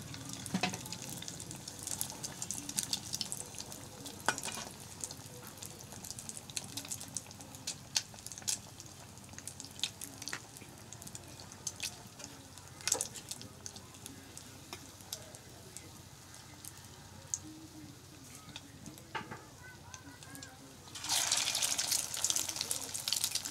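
Egg-coated potato chops deep-frying in hot oil in a karahi: a steady sizzle with scattered crackles and pops. About 21 seconds in, the sizzling suddenly grows much louder as a spatula works among the chops.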